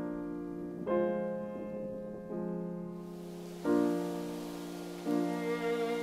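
Slow solo piano music: four sustained chords, a new one struck about every second and a half, each ringing on as it fades.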